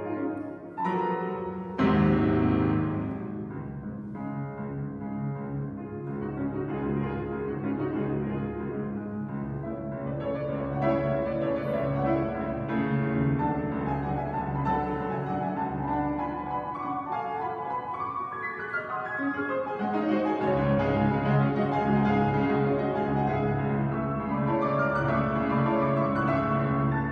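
Solo classical piano played on a grand piano: a loud chord is struck about two seconds in, followed by flowing passages, with deep bass notes coming in louder about twenty seconds in.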